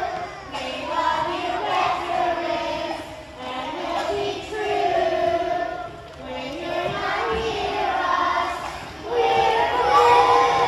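A large group of young children singing together as a choir, in phrases with held notes and short breaks about every three seconds.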